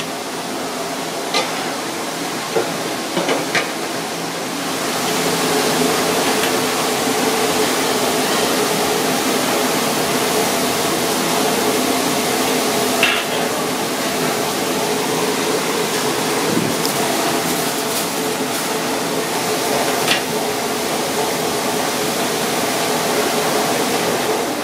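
Steady kitchen hum and hiss that grows louder after about five seconds, with scattered clinks and knocks of metal utensils against racks and pans.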